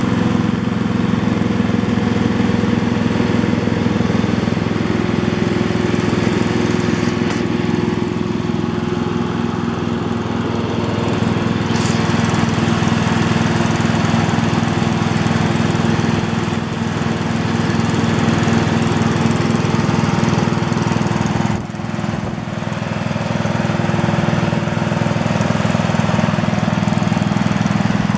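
MTD lawn tractor engine running steadily, with a brief dip in level a little over three-quarters of the way through.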